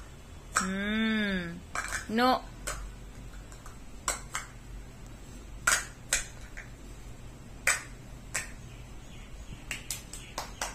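Light plastic stacking cups clacking and knocking as they are set down and nested into one another, in scattered single knocks about a second apart. Early on a voice says a drawn-out "no", and near the end come a few quick hand claps.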